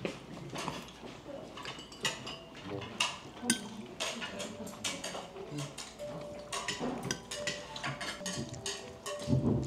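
Eating utensils clinking against plates and bowls at a meal, many sharp irregular clinks.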